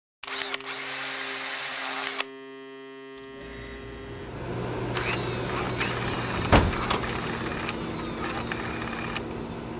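Synthesized sound effects for a futuristic title animation: electronic hum and noise with a rising whine, cutting off suddenly about two seconds in to a buzzing tone, then a low rumble building into a dense stretch of digital clicks and glitches with one sharp, loud hit about six and a half seconds in.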